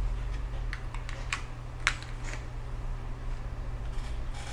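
A few light, separate clicks and taps of a CPU and motherboard socket being handled, over a steady low hum.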